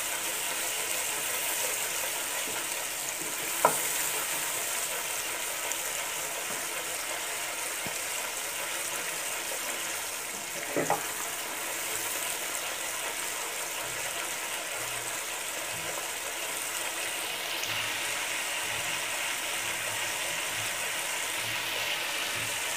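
Onion, garlic and green-chili paste sizzling in hot oil in a nonstick pan while it is stirred with a wooden spatula and roasted towards browning. A steady hiss, broken by two brief knocks, about four seconds in and again near eleven seconds.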